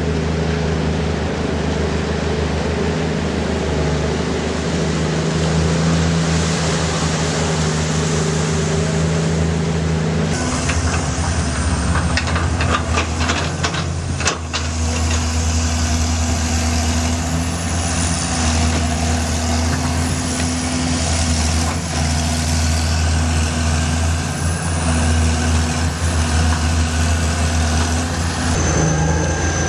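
Heavy diesel engine of a large bulldozer running steadily with a low hum. About a third of the way in the sound changes abruptly, as at a cut, and a brief spell of clattering clicks follows. A faint wavering high whine runs over the engine after that.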